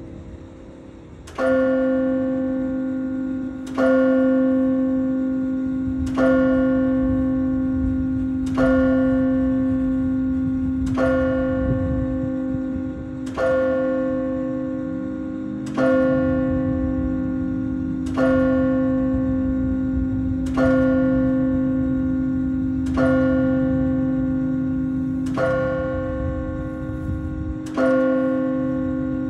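A single carillon bell striking the hour: twelve even strokes of the same note, about two and a half seconds apart, each ringing on with a long decay that overlaps the next.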